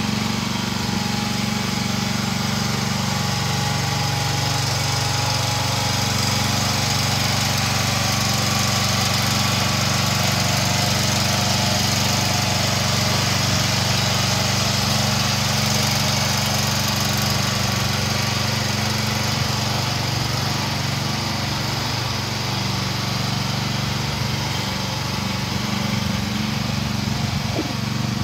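2023 AGT Industrial H12 mini excavator's small engine running steadily at an even pitch.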